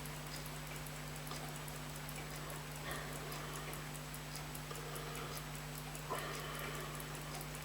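Faint, regular ticking of a running clock or watch over a steady low hum, with a small sharp click and brief handling noise from work on a pocket watch movement about six seconds in.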